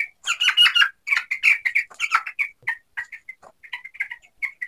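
Two-week-old broiler chicks peeping: a dense run of loud, high peeps for the first two seconds or so, then thinning to scattered short peeps.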